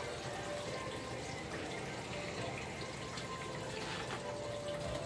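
Hot frying oil sizzling steadily in a pot on a gas stove.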